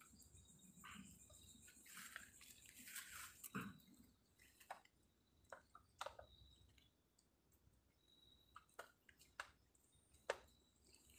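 Near silence, broken by faint, scattered sharp clicks and a few brief soft rustles.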